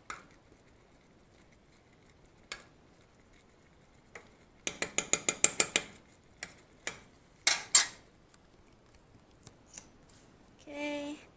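Metal spoon clinking against a saucepan of chili: a quick run of about ten light clicks about five seconds in, then two louder clinks a moment later.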